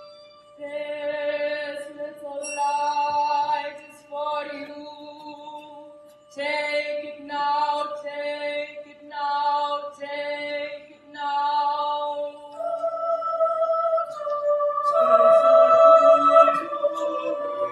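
A choir singing in short separated phrases over a steady held tone, swelling into a louder sustained chord near the end.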